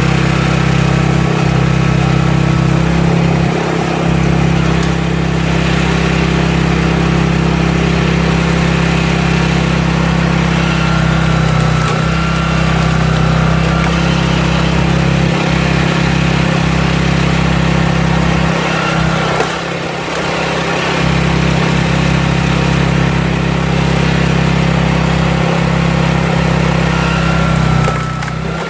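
Small engine of a walk-behind power cultivator running steadily as it drives a log splitter, with wood cracking and splintering as logs split.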